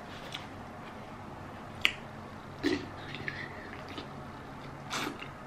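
Close-miked mouth sounds of eating a sauce-covered mussel from its shell: a handful of short, sharp, wet lip smacks and clicks, separated by quiet stretches.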